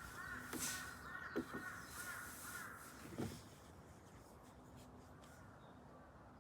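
A bird calling in the forest: a quick run of short, repeated calls for the first two to three seconds, then quiet forest background. A few soft knocks are heard under it.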